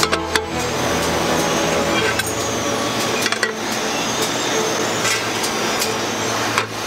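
Steady factory machinery noise with a low hum, with scattered light clinks and knocks as stacked metal frying pans are handled.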